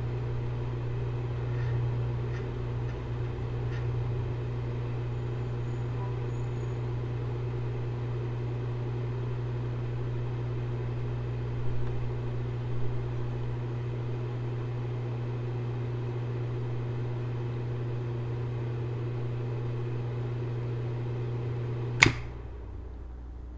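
Electric enclosure cooling fan running through a contactor with a steady hum; about a second before the end the contactor drops out with a sharp click and the hum stops, as the temperature controller switches the fan off on reaching its 27 °C cut-off point.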